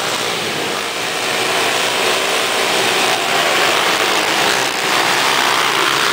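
A full gate of motocross bikes revving hard together at the start and accelerating off the line as a pack, the engine noise getting louder about a second in.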